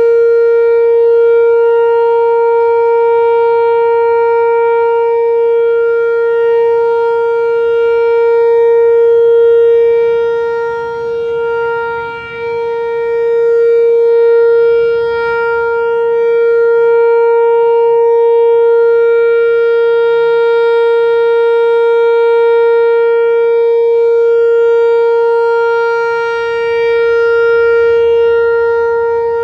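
Whelen Vortex-R4 rotating outdoor warning siren sounding the steady Alert signal of a siren test. It holds one unchanging pitch, and the sound swells and fades slowly as the rotating horn turns toward and away.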